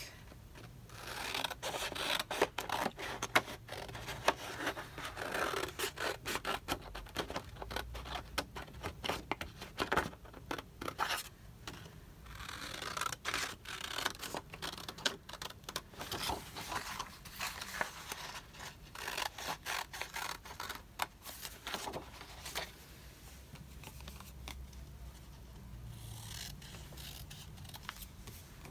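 Scissors cutting through printed sticker paper in many quick short snips. The cutting stops about 22 seconds in.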